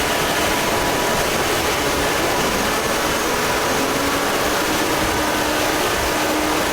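Loud, steady static-like hiss with a few faint steady tones beneath it, part of a fan-made fake Emergency Alert System alarm.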